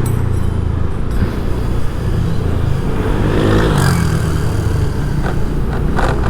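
Urban road traffic running steadily, with one vehicle's engine passing close about three to four seconds in.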